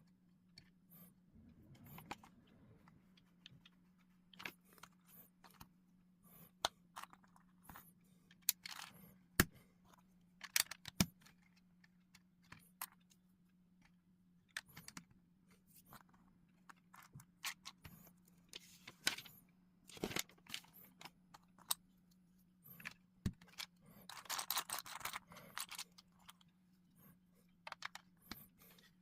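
LEGO bricks being handled and pressed together: scattered sharp plastic clicks and short clatters, with a couple of seconds of rummaging clatter a little before the end, over a faint steady low hum.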